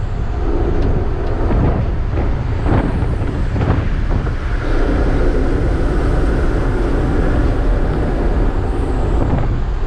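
Truck cab interior noise while cruising on a highway: steady low engine and tyre rumble, with a few brief knocks or rattles between about one and four seconds in.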